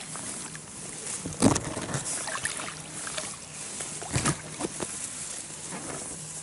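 Water splashing and sloshing in the shallows as a landing net is worked to release a large barbel, with irregular sharp splashes, the loudest about a second and a half in and again about four seconds in.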